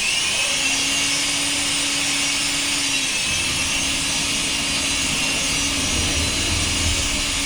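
Pressurised gas hissing steadily as it is blown through a refrigerator's capillary tube to flush it out. The hiss starts abruptly, with a faint low hum underneath.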